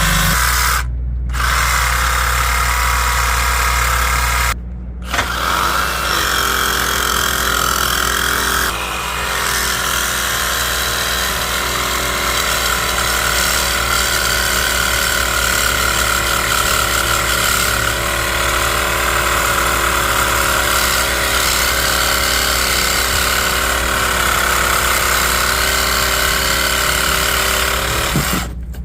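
Power tool cutting through a 3-inch copper water pipe, running steadily with two brief stops in the first five seconds and cutting off just before the end.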